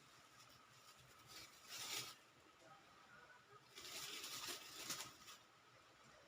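Near silence with two brief stretches of faint rustling, about one and a half seconds in and again around four to five seconds in.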